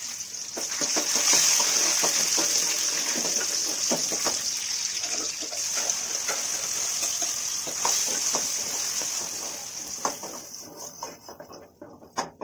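Garlic cloves and curry leaves sizzling in hot oil with tempered mustard seeds, with scattered crackling pops. The sizzle dies away near the end.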